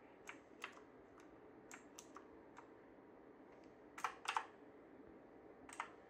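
Keys of a Havit HV-KB378L mechanical keyboard being pressed one at a time, giving faint scattered clicks at an uneven pace, with a louder pair of clacks about four seconds in and another near the end.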